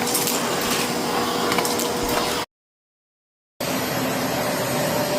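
Samsung PowerMotion 2100 vacuum cleaner running with a steady motor hum and rushing air. It cuts off abruptly about halfway through, leaving a second of dead silence, then starts up running the same way.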